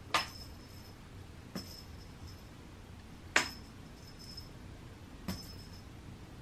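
Four sharp light clinks, spaced about one and a half to two seconds apart, each followed by a short faint high ring.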